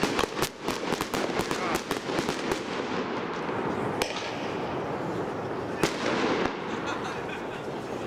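Firework cake (multi-shot consumer battery) firing: rapid pops and crackling for the first three seconds or so, then a steadier noise with a couple of single bangs later on.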